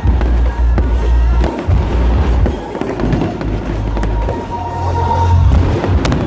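Aerial fireworks display: repeated deep booms of shells bursting, with a few sharp cracks, loudest around a second in and again near the end.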